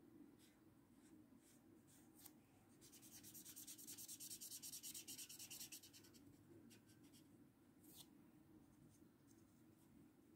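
Faint scratching of a felt-tip marker coloring on paper. A fast back-and-forth run of strokes, about ten a second, comes in about three seconds in and lasts some three seconds, with a few single scratches before and after.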